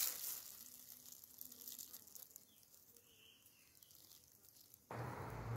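A brief crackle, then faint quiet until near the end, when a loud, steady buzz of honeybees starts suddenly.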